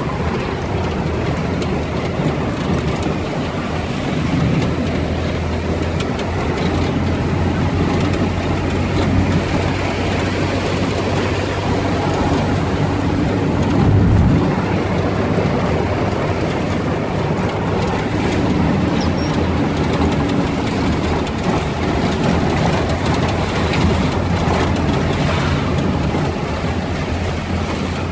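Vehicle engine running steadily as heard from inside the cab while driving, with tyre noise on the wet road and rain on the windshield. A brief thump about halfway through.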